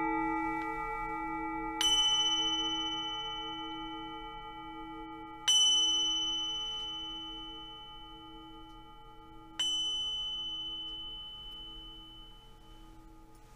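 A singing bowl's low, wavering hum rings on and slowly dies away, while a smaller, higher-pitched bell is struck three times, about four seconds apart, each strike ringing out bright and fading.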